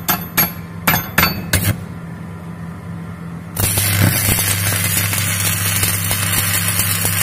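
Stick-welding electrode tapped against the steel plates several times, giving sharp clicks, to strike the arc. About three and a half seconds in the arc catches and burns on the butt joint with a steady crackling, frying hiss over a low hum.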